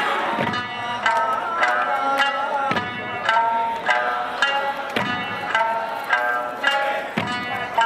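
Eisa music: an Okinawan folk tune with plucked sanshin notes plays over loudspeakers. Large ōdaiko barrel drums are struck in time with it, about two strokes a second.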